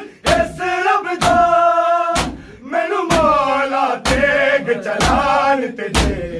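Men's voices chanting a noha in long held notes, with a loud unison chest-beat (matam) from the crowd about once a second, seven beats in all.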